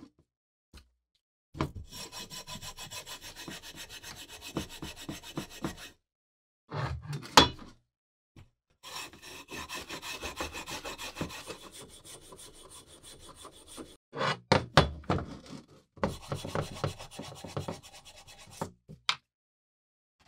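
A scouring pad scrubbing rust off a steel hatchet in quick, even back-and-forth strokes, in three separate bouts. A few sharp knocks come between the bouts as the hatchet is handled.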